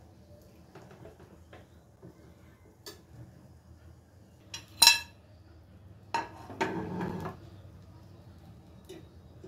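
Metal kitchenware clatter around a hinged stovetop waffle pan: a few light clicks, one sharp ringing clank about halfway through, then a second or so of clattering and scraping as a fork works at the waffle and a plate is set down.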